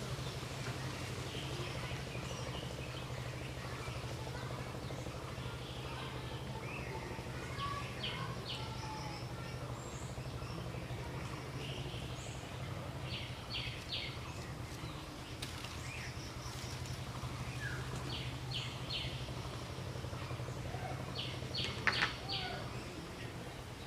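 Outdoor ambience: a steady low hum, with birds chirping now and then in short bursts of three or four quick notes.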